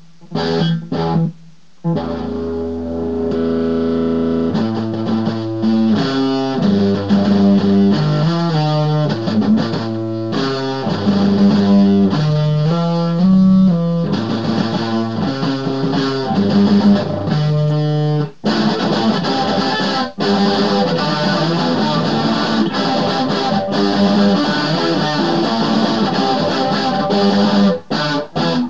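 Electric guitar played through an effects pedal. A chord rings for a couple of seconds, then comes a long run of quickly changing single notes and riffs, broken twice by short pauses.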